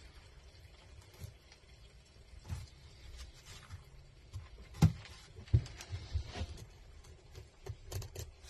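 Filleting knife ticking and scraping along the bones of a pollock as the fillet is cut free, with scattered soft knocks; the two sharpest knocks come about five seconds in.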